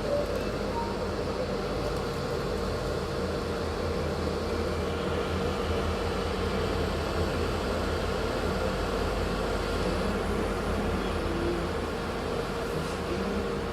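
Steady mechanical hum with a low, even drone, unchanging throughout.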